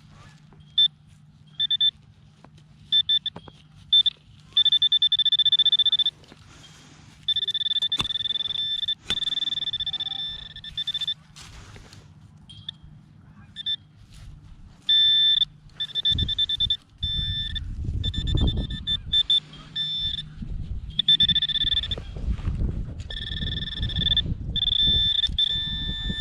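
Metal detector sounding on a buried coin target: short beeps and longer held tones at one high pitch, coming on and off. Soil is being dug and scraped, heaviest in the second half.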